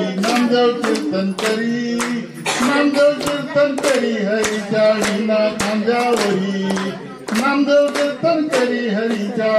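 A man singing a song into a handheld microphone while the group around him claps along in time, about two claps a second.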